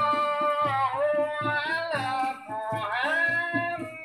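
Music: a singing voice holding long notes that slide between pitches, over a steady beat.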